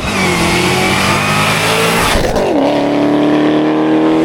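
Ford Mustang GT350's 5.2-litre Voodoo flat-plane-crank V8 running hard under throttle, with a quick drop in pitch about two seconds in, then a steadier, slowly rising note.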